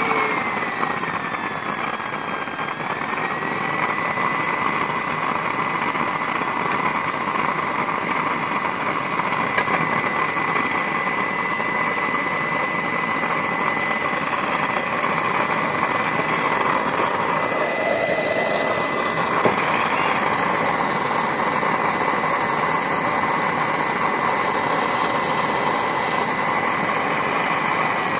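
Used-oil stove burner running on forced air: a steady rush of air and flame with a high motor whine over it. The whine dips in pitch just after the start, comes back up within a few seconds, then holds steady.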